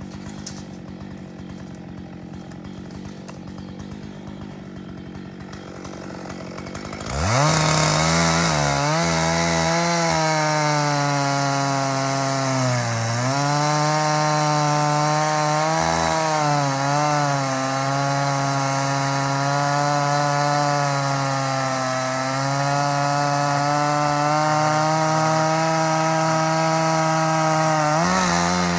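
Chainsaw running at low throttle, then opened up about seven seconds in and held at high revs cutting through a dead ash log, the engine pitch sagging briefly a few times as the chain bites into the wood.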